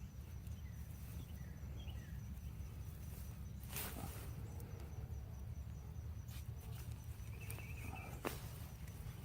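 Soil being dug through while harvesting potatoes: soft scraping and rustling, with a few sharper scrapes a little under four seconds in, at about six and a half seconds and about eight seconds, over a low steady rumble.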